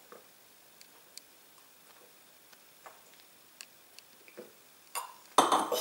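Someone drinking from a wine glass: faint scattered clicks over quiet room tone. Near the end comes a sharp clink of the glass, the loudest sound, with a ringing tail.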